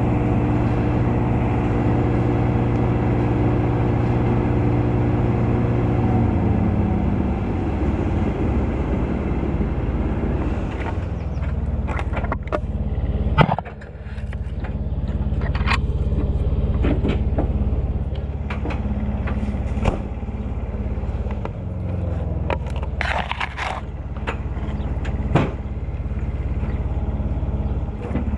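Cherry picker's engine running steadily, its pitch dropping about six seconds in. From about eleven seconds on, scattered sharp clicks and knocks sound over it.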